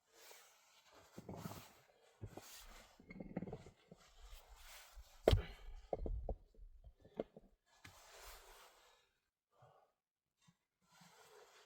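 Scattered rustling and handling noises with several sharp knocks; the loudest knock comes about five seconds in.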